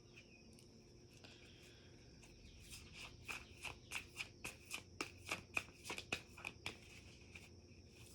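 Tarot cards being shuffled by hand: a run of quick, faint card snaps, about four a second, starting a few seconds in and stopping about a second before the end.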